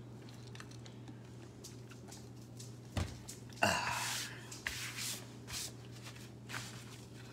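Small objects being handled on a work table: a knock about three seconds in, a short rustle just after, then a few light clicks, over a steady low hum.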